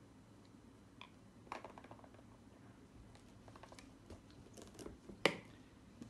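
Handling noise from a cardboard medical kit box: small clicks and rustles as gloved hands work over it, then one sharp snap a little after five seconds in as the box lid is put on.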